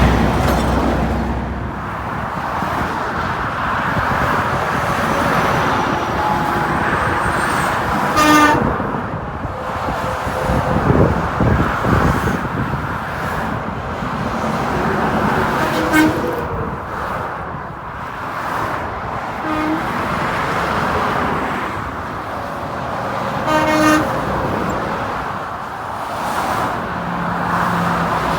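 Several short vehicle-horn toots, a few seconds apart, over steady highway road noise.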